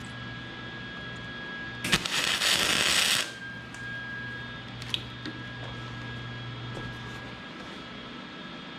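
A single short tack weld: about a second and a half of loud, even welding hiss starting about two seconds in, over a steady electrical hum. A light click follows a few seconds later.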